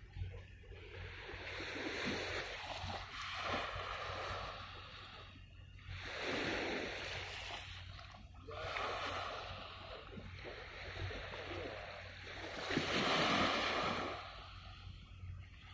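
Small waves washing in on the shore, a rushing swell of water every few seconds, the biggest near the end, over a faint steady low hum.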